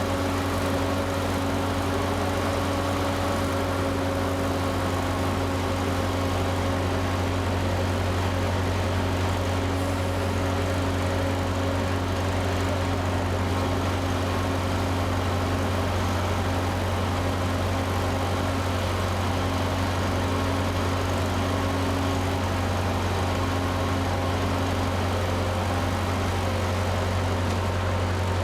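Engine idling, a steady low drone with faint steady higher tones above it and no change throughout.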